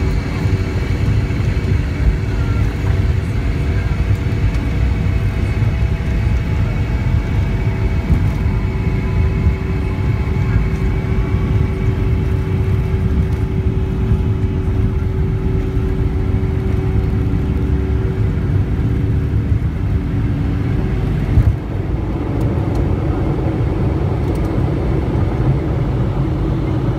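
Boeing 717's Rolls-Royce BR715 turbofans at takeoff thrust, heard from a cabin window seat during the takeoff roll: a loud, steady rumble with a droning engine tone over it. About three-quarters of the way through, the level dips briefly and the tone changes as the aircraft lifts off.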